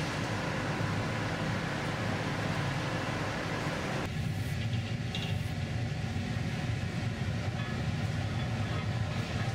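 Steady roar of gas-fired glassblowing furnaces and glory hole. About four seconds in, the higher hiss drops away abruptly, leaving the low roar.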